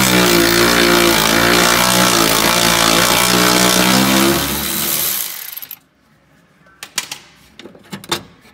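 Power tool running steadily and loudly as a bolt is backed out, cutting off about five and a half seconds in, followed by a few light clicks and knocks.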